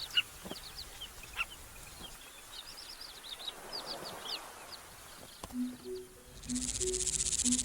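Carmine bee-eaters calling, a loose scatter of short chirps. About six seconds in, a steady high insect trill starts up and becomes the loudest sound.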